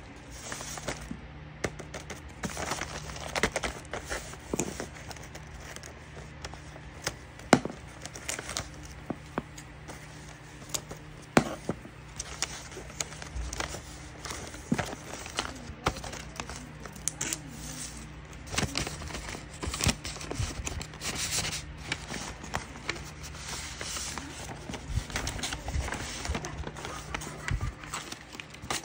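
Paper wrapping being handled and unwrapped by hand: irregular rustling and crinkling of sheet paper, with occasional sharp taps and crackles.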